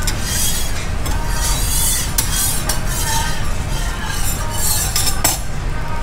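Metal spatula scraped back and forth over a flat steel griddle plate, a rasping stroke about once or twice a second, with one sharp clack near the end as the spatula is set down on the griddle's rim. A steady low rumble runs underneath.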